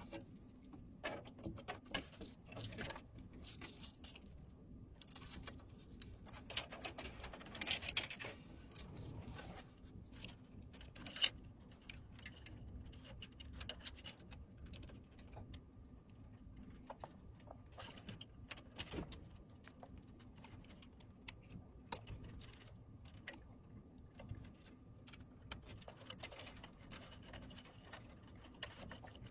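Small handling noises from computer parts being fitted: scattered light clicks, taps and rattles, with a sharper click about eleven seconds in, over a faint steady hum.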